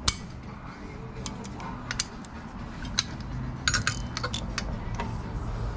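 Sharp metallic clinks and clicks of a socket and torque wrench being fitted and set on the steel sprocket nuts of a motorcycle rear wheel, with a quick cluster of clicks a little under four seconds in.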